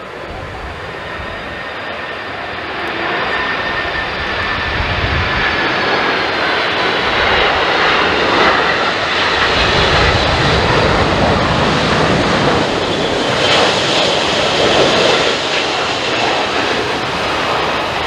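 The three turbofan engines of a McDonnell Douglas MD-11F freighter on final approach: a rushing jet noise with a high whine that slides slowly lower. It grows louder over the first several seconds as the plane comes close, then stays loud.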